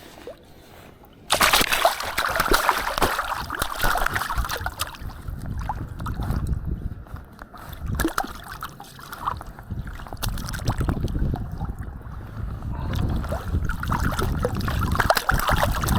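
Creek water sloshing and splashing close by, beginning abruptly about a second in and carrying on with irregular splashes.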